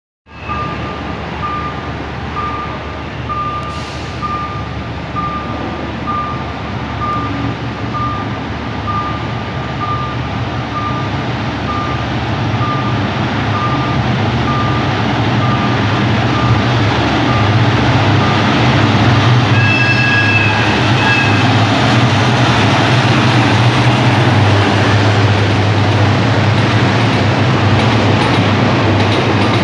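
A State Railway of Thailand diesel-hauled express train approaches and runs past. Its low engine rumble grows steadily louder, a short horn blast sounds about two-thirds of the way through, and then the coaches roll by. Over roughly the first half, a short electronic warning beep repeats about twice a second.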